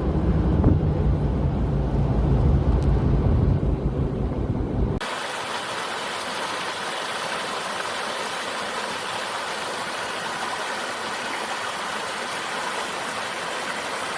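Car engine and road rumble heard from inside a moving car for about five seconds, then a sudden cut to a steady, even rushing hiss of a stream.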